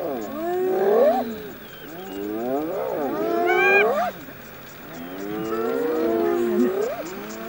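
A pack of spotted hyenas calling over one another in high squeals and whoops that glide up and down in pitch, some sweeping sharply upward, with short lulls between bouts.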